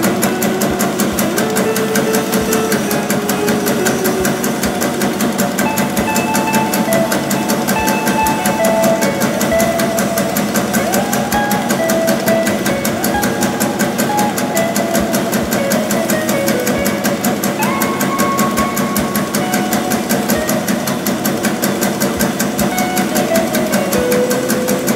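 Steady, rapid mechanical clatter of a bakso meatball-forming machine running, under background music with a simple stepping melody.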